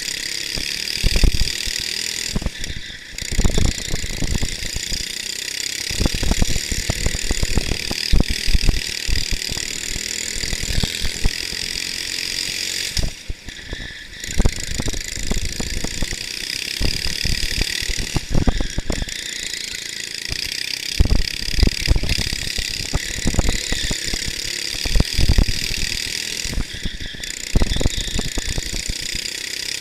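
Racing kart engine running hard under the onboard camera, its high whine dipping briefly several times as the throttle eases, with steady low buffeting and rattling on the microphone.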